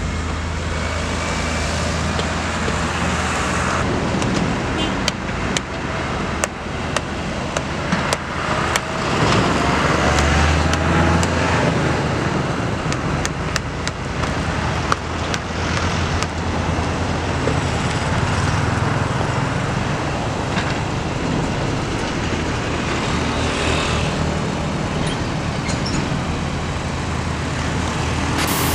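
Steady road traffic noise from vehicles passing on a highway, with scattered sharp knocks and clicks.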